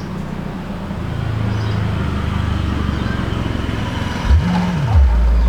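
18-inch HF Audio ASW 118A subwoofer reproducing a 35 Hz sine test tone, the speaker's rated lowest frequency: a steady low hum with overtones. About four seconds in, the pitch sweeps up and back down, then a louder low tone holds.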